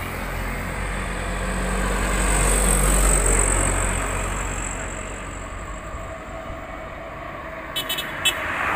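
A loaded truck driving past on the road, its engine and tyre noise swelling to a peak about three seconds in and then fading. A few short clicks come near the end.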